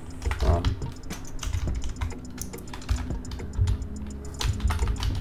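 Computer keyboard typing: quick, irregular keystrokes as a line of code is entered.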